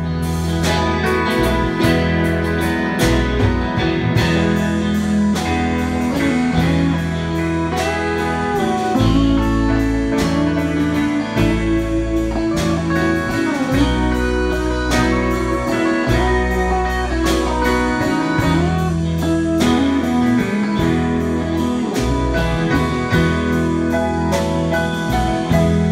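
Country band playing an instrumental break: a lead guitar solo with bending notes over bass and a steady drum beat.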